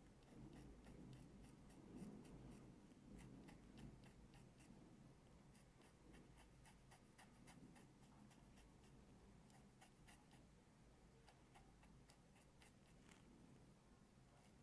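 Very faint scratchy ticking of a dermaplaning razor blade being drawn in short strokes over the forehead skin, shaving off fine facial hair.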